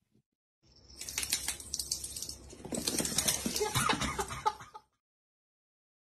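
Rapid clattering and scratching of a cat's claws scrabbling over a hard floor for about four seconds, stopping abruptly near the end.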